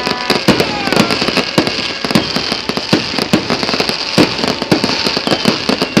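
Fireworks going off in quick succession: many sharp bangs and pops, several a second and irregular, over a continuous hiss.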